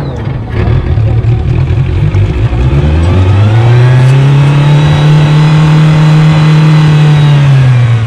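Yamaha 50 hp four-stroke outboard motor running, uneven at first, then revving up about three seconds in and holding at a steady higher pitch, easing off slightly near the end.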